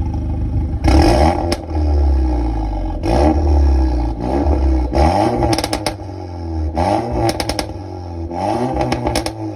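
VW Tiguan R's turbocharged 2.0-litre four-cylinder petrol engine, fitted with an aftermarket downpipe and no particulate filter, being revved through its exhaust: about five throttle blips, rising and falling. Several of the blips end in bursts of crackling pops as the revs drop.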